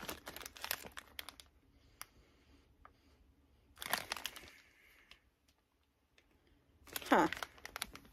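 Plastic packaging of a wax-melt sample crinkling and rustling as it is handled and opened, in scattered clicks and a short burst about four seconds in. Near the end comes a brief squeak that falls in pitch, the loudest sound.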